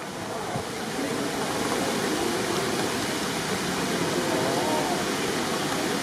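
Crowd applauding, building up over the first second or so and then holding steady.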